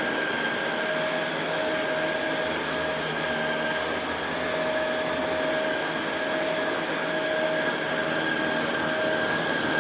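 Shark Rotator Pro Lift-Away NV500 upright vacuum running steadily while vacuuming carpet: a constant motor whine with a high steady tone, and a lower tone that fades in and out.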